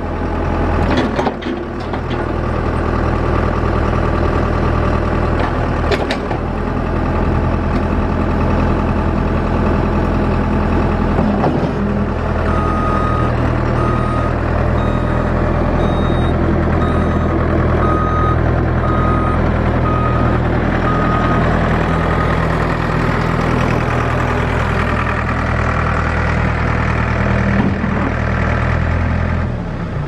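Ford 555D backhoe's four-cylinder diesel engine running steadily. From about the middle it is joined for several seconds by a backup alarm beeping about once a second, the signal that the machine is in reverse.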